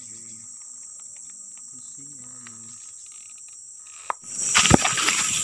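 Insects in the forest making a steady high-pitched drone. About four seconds in, it gets louder, with a few sharp knocks.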